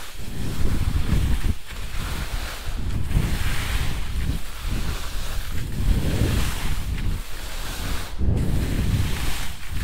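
Wind buffeting the microphone: a low, uneven rush that swells and dips.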